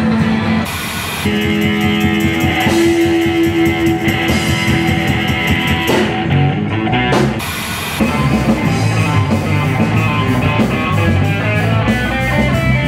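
Electric guitar playing lead over a live band with drum kit. The music changes abruptly several times as different performances are cut together.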